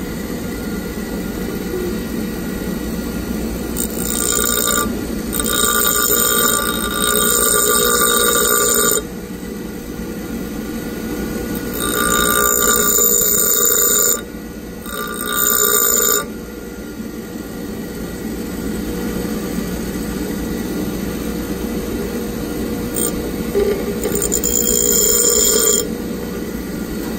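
Bench grinder running steadily, with a drill bit pressed against the spinning wheel in several bursts of a few seconds each, a high-pitched grinding of steel on the abrasive wheel. The grinds are thinning the drill's web to form a split point.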